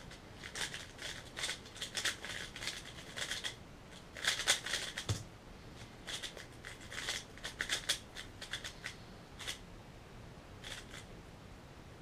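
Plastic speedcube (Valk 3M) layers turning very fast in a 3x3 speedsolve, a rapid run of clicks, ending about five seconds in with a single thump as the timer is stopped. Slower bursts of turning clicks follow.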